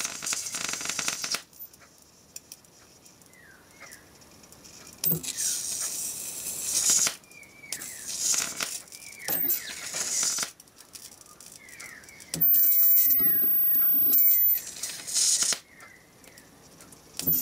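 High-voltage arc from a flyback transformer, fed about 8 amps, hissing and crackling in several bursts as it is drawn out with pliers, with quiet gaps between. The longest and loudest burst comes about twelve seconds in and lasts a couple of seconds, with a thin high whine over it.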